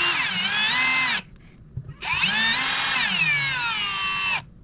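Power drill/driver driving in the ignition coil's mounting screws: two runs, the second about two and a half seconds long, its motor whine rising and then falling in pitch each time.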